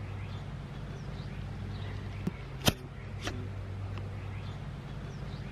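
Small handling clicks from a circular saw's carbon brush and spring against the saw's metal housing. One sharp click comes about two and a half seconds in, with a couple of fainter ticks around it, over a steady low background hum.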